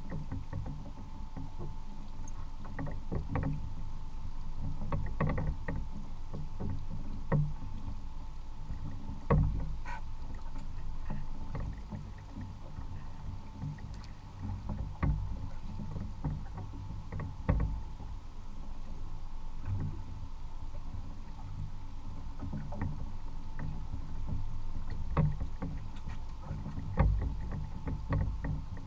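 Sea water lapping and slapping against a drifting kayak's hull, with irregular knocks from the boat every second or few, over a continuous low rumble.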